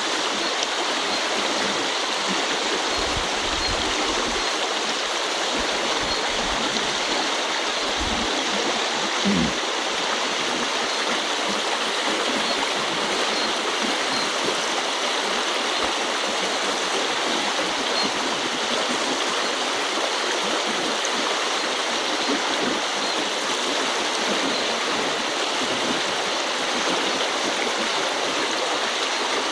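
Shallow river running fast over stones: a steady rushing and burbling of water, with a few soft low bumps a few seconds in and again near the middle.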